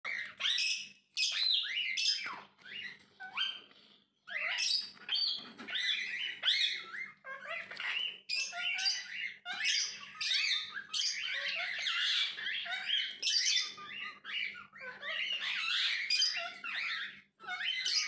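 Indian ringneck parakeet calls: a rapid, almost unbroken run of short, high, harsh calls, with brief pauses about a second in and about four seconds in.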